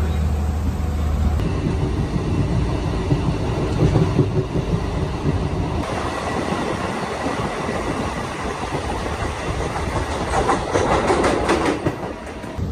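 Diesel multiple-unit passenger train running along the track, heard from the moving train: a steady rumble of wheels and engine, with a quick run of clickety-clack wheel clicks over rail joints near the end.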